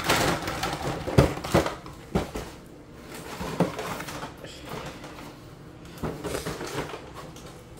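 Toy packaging being pulled open by hand: crinkling and rustling of plastic and cardboard, with several sharp clicks and knocks, the loudest about a second in.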